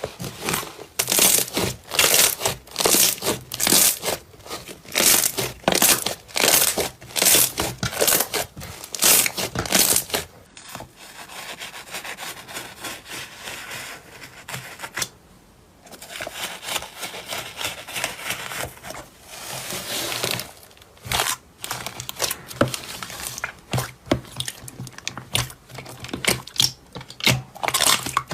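Slime being pressed and squished by hand, with quick sharp crackles and pops of trapped air, about two a second at first. In the middle it turns to a softer, denser crackling, then the sharp pops come back.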